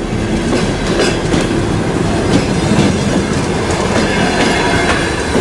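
Commuter train coaches rolling along a platform at close range, with a steady rumble and a rapid run of clicks from the wheels over the rail joints.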